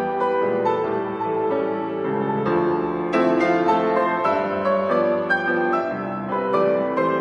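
Grand piano played solo: a piece of chords under a melody, with new notes struck every fraction of a second.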